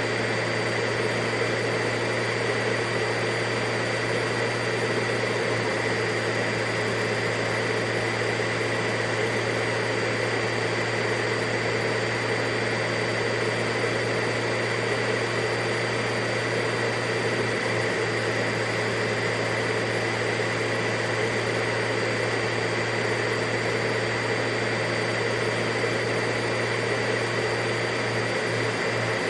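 Vacuum cleaner running continuously at a steady pitch: an even whooshing hiss with a constant motor hum and a high whine.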